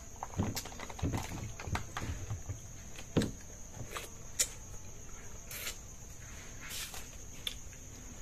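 Quiet eating sounds at a table: scattered small clicks and knocks of plates, cups and fingers picking at fish, the sharpest about three seconds in. Behind them runs a steady high chirring of night insects.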